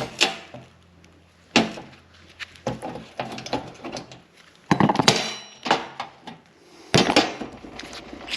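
Steel hand tools and parts knocking and clanking against each other as a bolt-and-washer press tool is worked off a suspension joint: several sharp knocks, the loudest about five and seven seconds in.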